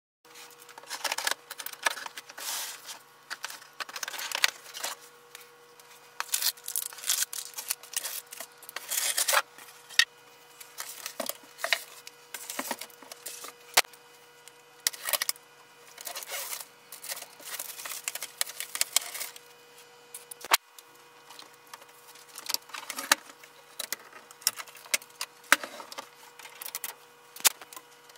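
Unpacking and handling noises from a printer and its packaging: plastic wrapping and packing material rustling and rubbing in irregular bursts, with scattered clicks and knocks, over a faint steady hum.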